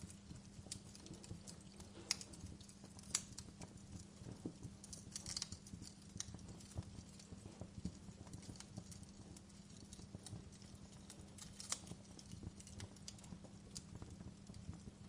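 Fire crackling: irregular sharp pops and snaps, a few louder ones about two, three and twelve seconds in, over a steady low rumble.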